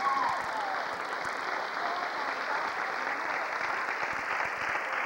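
Audience applauding. The last notes of the dance music fade out in the first moment.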